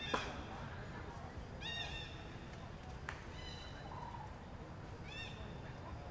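An animal's short, high, slightly arched call, repeated about every one and a half seconds, over a sharp click just after the start and a fainter one about three seconds in.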